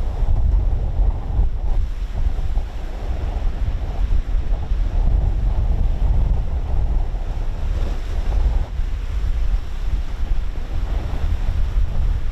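Strong wind buffeting the microphone over heavy sea surf breaking during a storm surge, a continuous low rumbling noise with no let-up.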